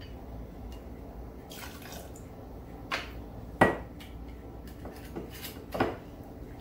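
Dry vermouth poured briefly from a metal jigger, then a few sharp clinks and knocks of jigger, glass and bottle on the bar top, the loudest a little past the middle.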